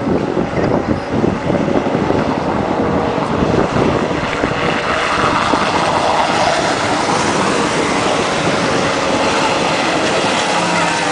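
Thundercat race boats' outboard engines running at speed, heard as a steady engine drone that swells from about four seconds in, with faint engine tones showing near the end. Wind buffets the microphone in the first few seconds.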